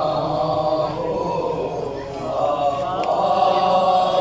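A group of men chanting a nauha, a Shia mourning lament, together in unison.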